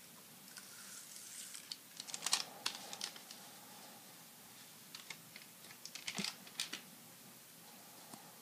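1991-92 Upper Deck basketball card pack being handled by hand: the foil-ended wrapper crinkles and the stack of cards slides out and is fingered. It comes as two bursts of small clicks and crackles, about two seconds in and again about six seconds in.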